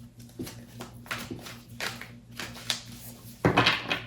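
A deck of oracle cards being shuffled by hand: a string of short, irregular papery rustles, with a louder one about three and a half seconds in.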